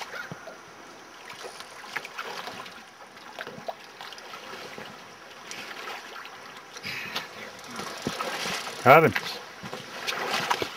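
River water running past the wading anglers, with scattered light clicks.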